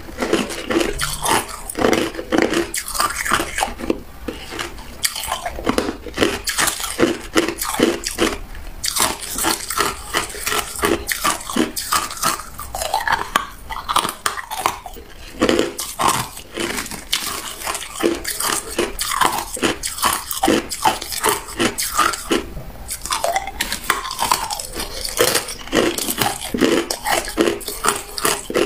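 A person chewing and biting crushed ice: rapid, sharp crunches of ice breaking between the teeth, several a second.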